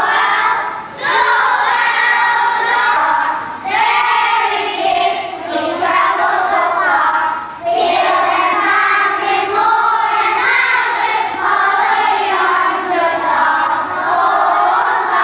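A group of young children singing together, with short breaks between phrases.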